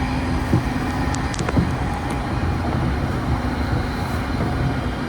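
Train running with a steady low rumble, a couple of short knocks and a brief faint high squeal just after a second in.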